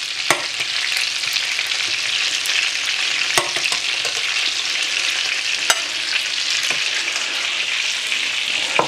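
Frikadellen (German meat patties) frying in oil in a pan, a steady sizzle. Four sharp clicks stand out over it.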